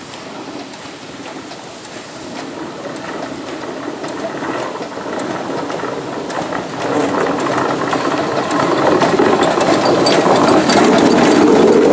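South African Railways Garratt narrow-gauge steam locomotive approaching and passing with its train: steam hiss and the chuff of its exhaust grow steadily louder, stepping up about seven seconds in, with a light rhythmic ticking of wheels and motion near the end.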